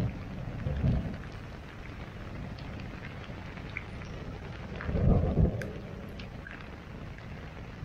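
Steady rain falling, with scattered taps of single drops, and short low rumbles of thunder just at the start and again about five seconds in.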